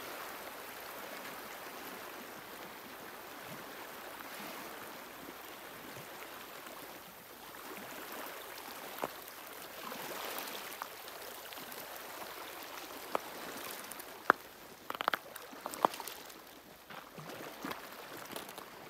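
Small waves lapping and gurgling at the edge of the partially frozen lake, with a handful of sharp clicks in the second half.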